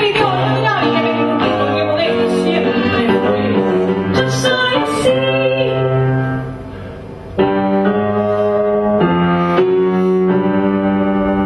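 Live piano and violin playing a slow melody, the violin holding long bowed notes over the piano. The music drops quieter for about a second just past the middle, then comes back in at full strength.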